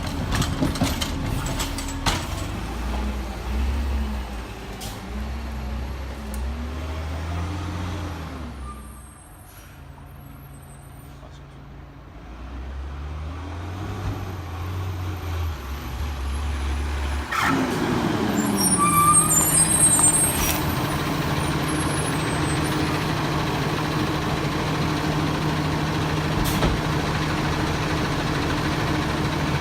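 Peterbilt 320 garbage truck with a Bridgeport Ranger side-loader body working, its diesel engine note rising and falling and dropping quieter for a few seconds. About 17 seconds in, a sudden burst of noise comes, and then the engine holds a steady, higher drone, with a brief high squeal a couple of seconds later.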